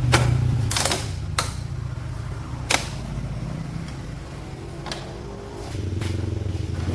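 Six sharp knocks, irregularly spaced, over a low steady hum.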